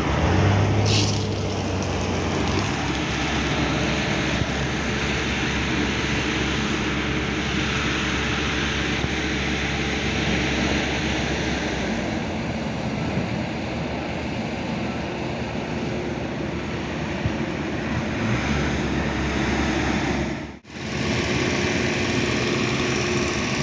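An engine running steadily. It cuts out for a split second near the end and then carries on.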